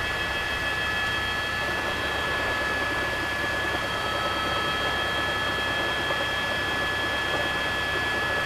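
Steady engine noise from a news helicopter filming from the air: an even rushing hiss with several high, steady whining tones running through it.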